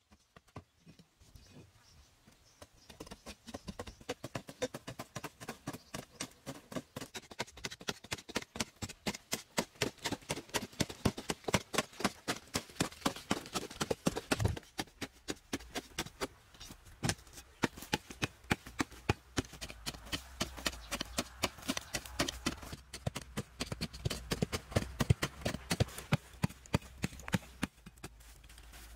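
A bladed hand tool hacking repeatedly into hard, dry earth, about two to three strikes a second, starting faint and getting louder after a few seconds.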